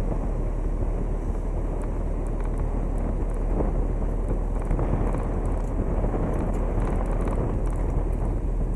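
Car driving slowly with a steady low rumble of road and engine noise, heard through a camera microphone on a car mount that is buffeted by wind.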